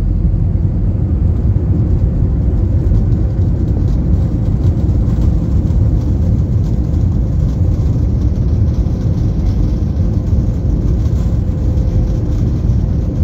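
Cabin noise inside an Airbus A320-200 airliner: the steady, loud low rumble of the jet engines and airflow, with a faint steady hum.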